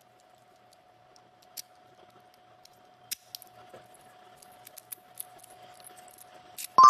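Scattered small metallic clicks and ticks, like a key being handled at a CNC key cutting machine, over a faint steady tone. Right at the end comes a sudden loud bright ding that rings on in several tones.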